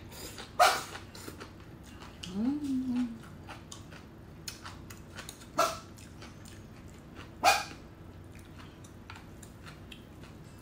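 A pet dog barking three times: single short, sharp barks about a second in, around the middle and a little later, with soft eating clicks between.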